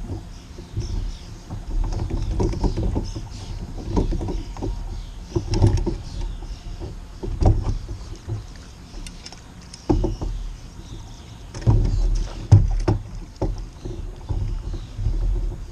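Water splashing and sloshing around a kayak, with irregular knocks against the hull over a low rumble; a cluster of louder knocks comes about two-thirds of the way in.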